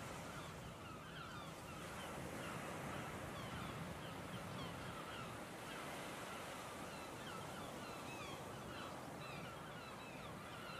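A flock of birds calling, many short overlapping calls, over a steady rushing background noise.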